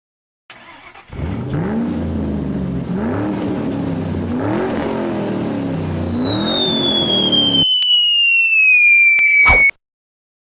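Truck engine sound effect revving up and down several times, then a long falling whistle, the cartoon signal of a drop, that ends in a short sharp crash near the end.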